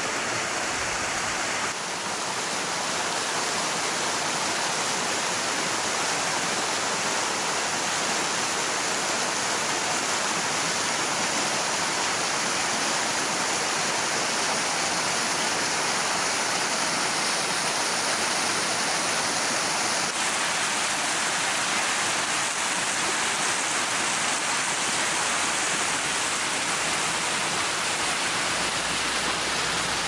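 Waterfall cascading down a rock face onto stones: a steady rush of falling water.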